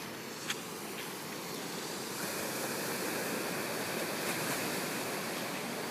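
Ocean surf washing against a rocky jetty, a steady rush of noise, with a single sharp click about half a second in. The rush grows a little louder and brighter about two seconds in.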